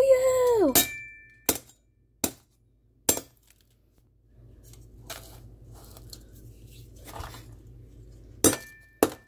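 Sharp clinking strikes of a hard tool on a block of ice: three about a second apart, then two more near the end with a brief metallic ring. It opens with a drawn-out voice sliding down in pitch and cutting off, and a faint steady noise fills the pause between the strikes.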